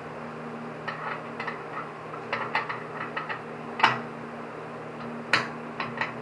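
Scattered light clicks and knocks, a dozen or so, of metal parts and hand tools being handled during assembly, with two louder knocks about four and five and a half seconds in. A steady low hum runs underneath.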